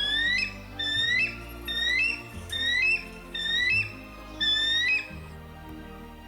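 A bird of prey calling six times in a row, each call a high whistled note that rises and ends in a sharp upward flick, about one call every 0.8 s, stopping about five seconds in. Background music plays underneath.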